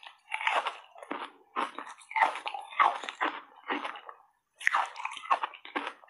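Close-up crunching and chewing of frozen foam ice dusted with matcha powder: a run of wet crunches, about two to three a second, with a short pause about four seconds in.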